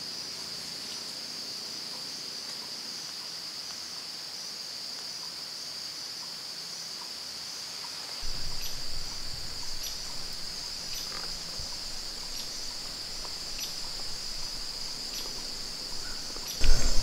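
Steady, continuous high-pitched insect chorus in the woods, like crickets. About eight seconds in, a low rumble joins underneath it.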